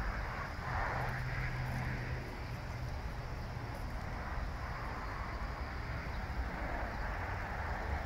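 Steady outdoor background noise in a garden, with a low hum that is strongest in the first couple of seconds and fades into the general hiss.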